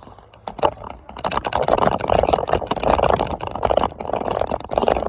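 Rapid rattling and clattering with a low rumble, as from a phone riding along on a moving vehicle over rough ground; it grows louder about a second in.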